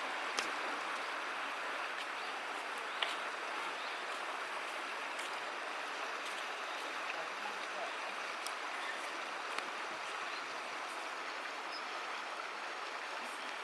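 River water flowing in a steady rush, with a few brief sharp ticks scattered through it.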